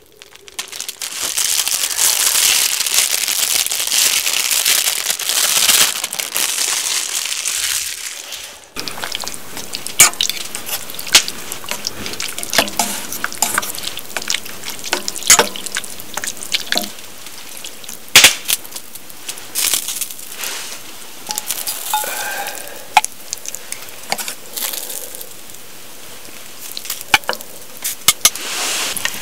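Sukiyaki broth boiling hard in a pot with a loud, dense bubbling hiss for the first eight or so seconds. After a sudden cut it gives way to udon simmering in the broth, softer, while chopsticks stir the noodles with frequent sharp clicks and crackles.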